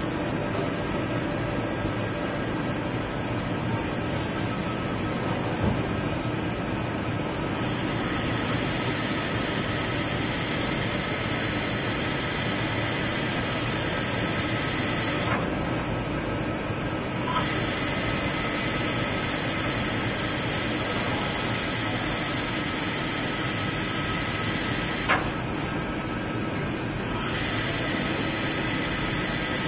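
Hirung CNC lathe turning a metal bar: steady machine running noise with a high whine that starts about a third of the way in and drops out twice for a couple of seconds, as the tool cuts and throws off curled chips.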